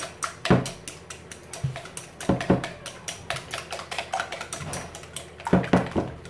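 Wire whisk beating eggs in a glass bowl: rapid clicking of the wires against the glass, with a few louder knocks about half a second, two and a half and six seconds in.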